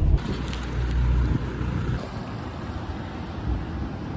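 Road noise inside a moving car, a low steady rumble. About two seconds in it gives way to a quieter, even outdoor background.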